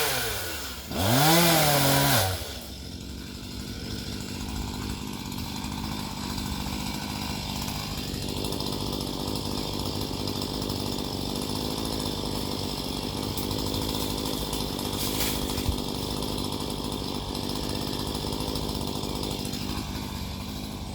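Chainsaw coming off the throttle, blipped up and back down once about a second in, then idling steadily.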